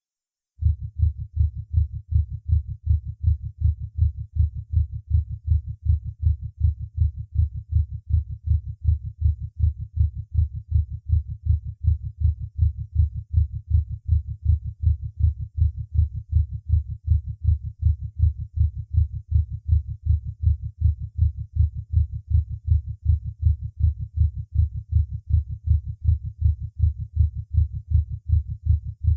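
Heart tones recorded by auscultation, beating fast and evenly with a steady, regular rhythm: the sign of a paroxysm of supraventricular tachycardia. The low, dull beats start about half a second in.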